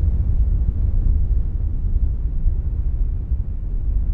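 Wind buffeting the microphone: a gusty low rumble that swells and dips.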